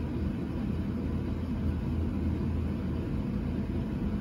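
A steady low rumble of background noise, even throughout, with no distinct event standing out.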